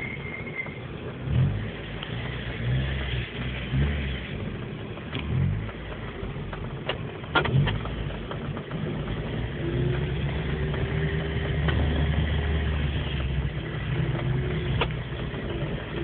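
Car engine running as the car drives along, heard from inside the car. A few sharp clicks or knocks come about seven seconds in, and the engine runs louder from about ten seconds, with a thin steady whine over it.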